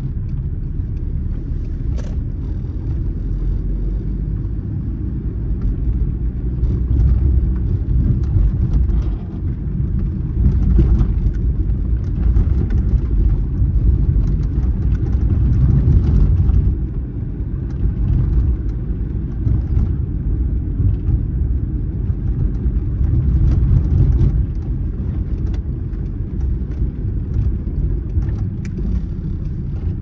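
Steady low rumble of a moving vehicle, swelling and easing a little now and then, with faint scattered ticks.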